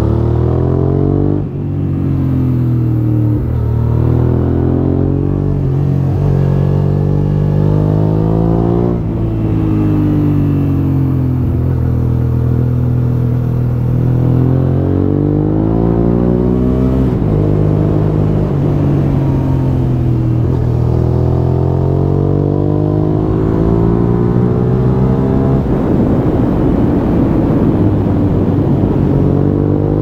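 A Suzuki SV650S's V-twin engine through an Akrapovic full exhaust system, heard onboard while riding. It revs up through the gears and rolls off for corners, the pitch climbing over a few seconds, dropping and climbing again many times.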